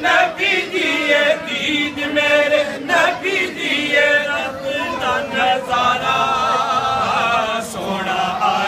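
A group of men chanting a Muslim devotional recitation together in unison, unaccompanied voices.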